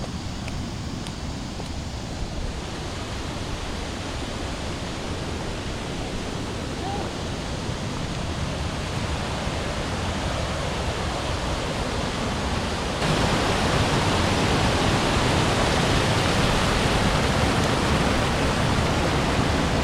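Steady rushing of a waterfall, growing slowly louder, then stepping up suddenly to a louder, fuller roar about thirteen seconds in.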